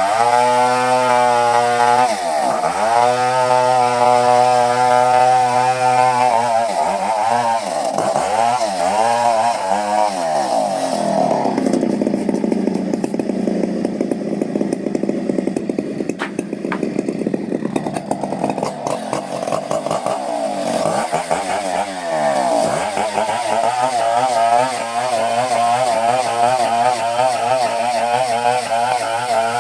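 Two-stroke chainsaw sawing coconut wood: the engine revs up and eases off several times, and for a long stretch in the middle the pitch sinks and the sound turns rougher as the chain bites into the wood under load.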